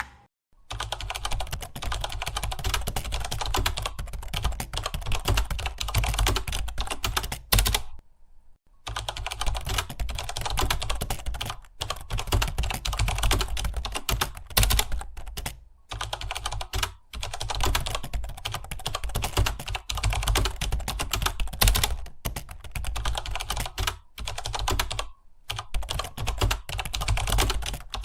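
Fast, continuous typing on a computer keyboard: a dense patter of key clicks that breaks off for short pauses, the longest lasting nearly a second about eight seconds in.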